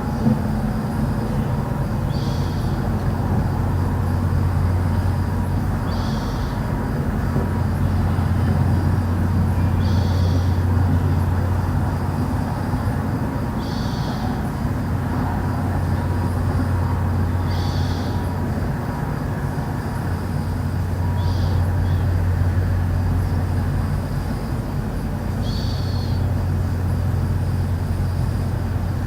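A steady low droning hum that slowly swells and fades, the kind reported as the unexplained 'strange sounds'. A short, high chirp repeats about every four seconds over it.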